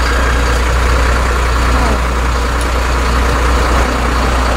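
Coach engine idling: a steady low rumble.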